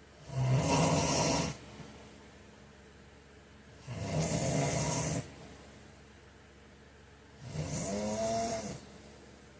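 A man snoring in his sleep: three snores about every three and a half seconds, each lasting a little over a second, the last one carrying a clear pitch that rises and then falls.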